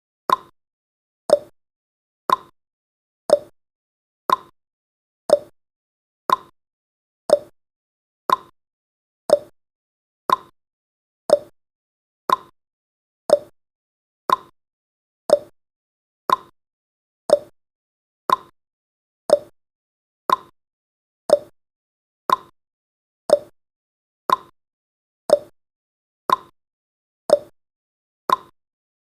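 Countdown timer's tick sound effect: a short, sharp tick once every second, evenly paced.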